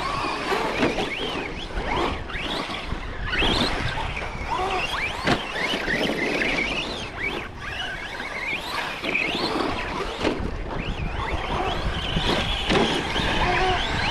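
Electric motors of RC trucks whining, the pitch rising and falling again and again as they accelerate and let off the throttle, over the noise of tyres churning dirt.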